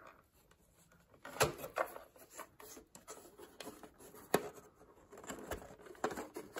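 Handling noise from the battery power-supply container being moved: a few sharp knocks with light rubbing and tapping between them.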